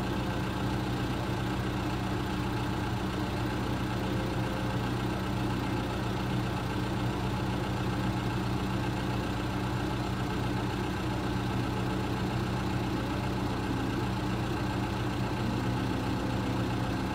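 Farm vehicle's engine idling steadily, an even low hum that does not change.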